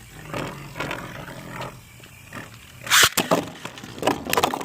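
Beyblade spinning tops whirring and grinding against each other in a plastic stadium, then a loud hard clash about three seconds in followed by a quick clatter of clicks as the battle is decided.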